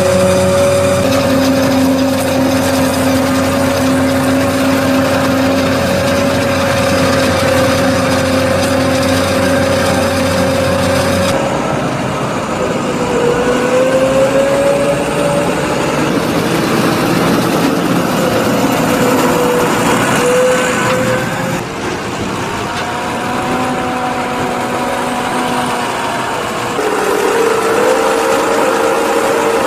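Forage harvester and tractors working in silage corn: a self-propelled forage harvester running with a steady high-pitched drone, then a New Holland T7 tractor pulling a loaded forage wagon, its engine pitch rising and falling as it drives. The sound changes abruptly twice, at about a third and two thirds of the way through.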